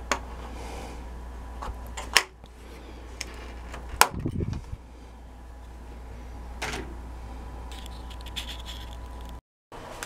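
A few sharp plastic clicks and snaps, the loudest about two and four seconds in, as the plastic safety cover over an electric water heater's thermostat is worked loose and pulled off, over a low steady hum.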